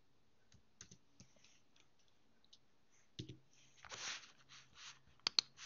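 Faint, scattered clicks of computer keys, with a louder knock about three seconds in, a soft rustle around four seconds, and two sharp clicks near the end.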